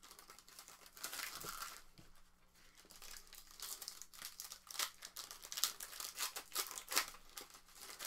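Packaging of a Panini Phoenix football card box being torn open and handled: irregular crinkling of wrappers with scattered tearing, easing off briefly about two seconds in.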